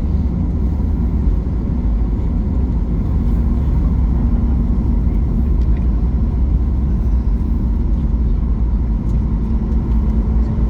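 Boeing 737 MAX 8 cabin noise heard from a window seat: a steady, deep rumble as the airliner rolls on the ground after landing, with a faint hum in the background.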